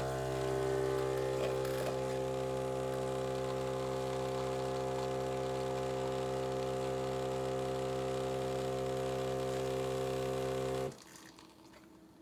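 A steady electric hum of several even tones that cuts in suddenly, holds level for about eleven seconds, then cuts off.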